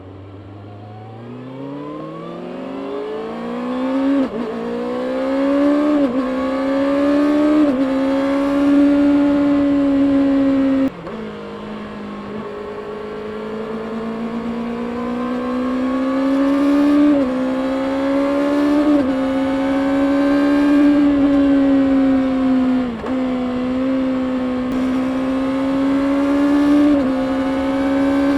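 A stock-exhaust 2024 Kawasaki Ninja ZX-6R's 636 cc inline-four revving up hard from low revs, then held high, with a brief dip in pitch at each quick gear change. About eleven seconds in, the revs and loudness fall sharply before climbing again.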